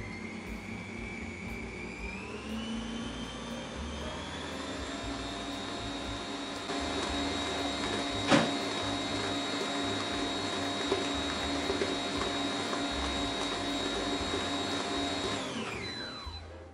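Kenwood Cooking Chef stand mixer running, beating cake batter: its motor whine rises in pitch over the first few seconds as it speeds up, holds steady, then winds down and stops near the end as its timer finishes. A single sharp click about eight seconds in.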